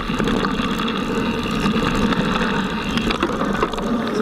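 Mountain bike riding fast over hard-packed dirt, heard from a camera on the bike: steady rolling tyre noise, rattle and rumble, with a few light clicks near the end.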